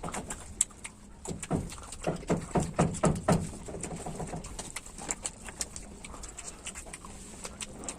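Close-miked chewing and mouth sounds of someone eating chicken: wet smacks and clicks, with a run of quick low chewing pulses about a second and a half in.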